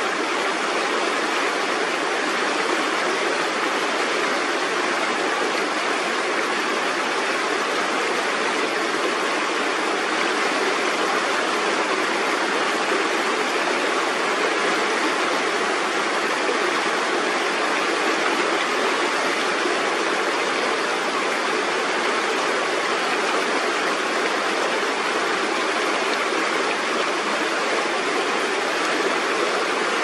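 Shallow river water rushing and splashing over rocks, a steady, even rush.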